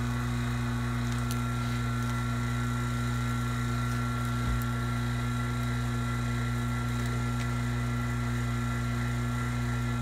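Vacuum pump running steadily with an even hum, pulling a deep vacuum on a refrigerant manifold gauge set.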